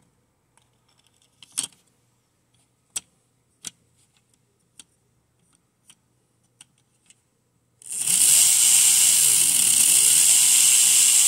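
A few sharp plastic clicks and taps as the HO slot car is handled on the track. About eight seconds in, the Tyco HP7 chassis's electric motor starts with a loud, high buzzing whine, its pitch dipping and rising as the speed changes.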